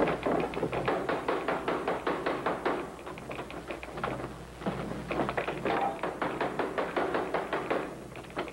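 Hand drums beating a fast, steady rhythm of many quick strikes a second, the film's jungle message drums.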